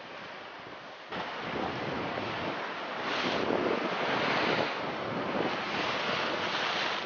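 Rough sea surging and breaking against rocks, with wind buffeting the microphone. It steps up in loudness about a second in and comes in repeated swells after that.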